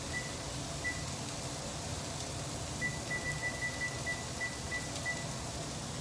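Electronic oven control panel beeping as its keypad is pressed to turn the oven on: two single short beeps, then a quick run of about nine beeps, roughly four a second.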